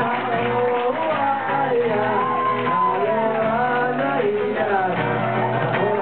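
Live band performance of an Amis youth gathering song: several voices singing together over guitar and drums, with shouts.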